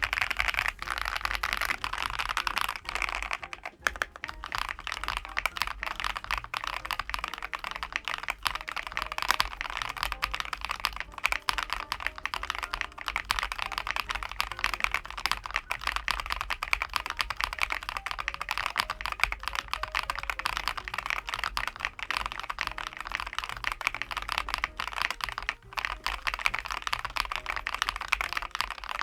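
ROYAL KLUDGE M87 mechanical keyboard typed on continuously: a fast, steady stream of key clicks and keystrokes.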